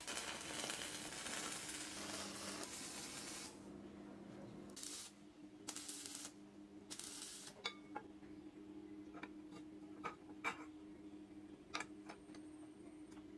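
Electric arc welding on steel: a spell of arc crackle about three and a half seconds long, then three short tack welds, followed by light metallic clicks and taps as steel pieces are handled. A steady low hum runs underneath.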